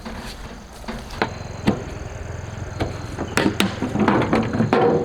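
Scattered sharp knocks and clatter over a steady low rumble, coming thicker and louder in the last two seconds.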